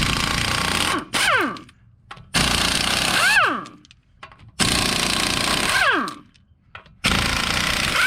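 Pneumatic impact wrench hammering in five short bursts, loosening the wheel's lug nuts. Each burst ends with a falling whine as the air motor spins down after the trigger is released.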